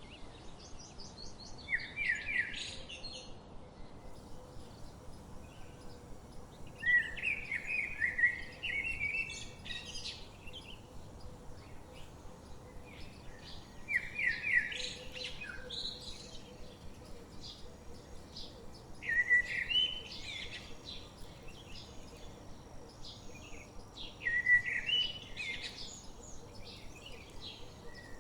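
A songbird sings a short, fast trilled phrase five times, about every five seconds, with fainter chirps from other birds between.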